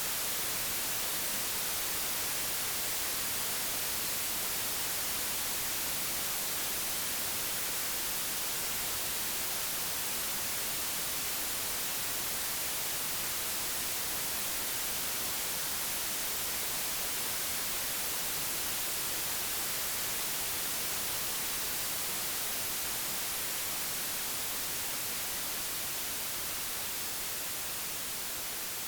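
Computer-generated pure white noise: a steady, even hiss across the whole range, brightest in the highs, easing down slightly in level near the end.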